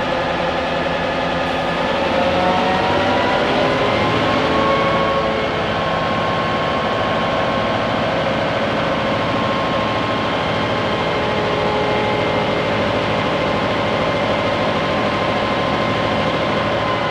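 The 16-cylinder EMD 567 two-stroke diesel prime mover of an EMD F7A locomotive, heard from inside the engine compartment. It runs steadily, its pitch rising about two seconds in as it speeds up, then holding level.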